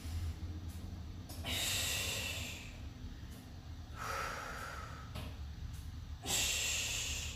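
A woman breathing hard from exertion: three forceful breaths, each about a second long and a couple of seconds apart.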